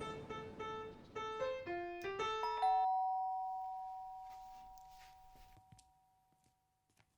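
Electronic doorbell chime: a quick run of notes, then a two-note ding-dong, high then low, that rings and fades away over about three seconds.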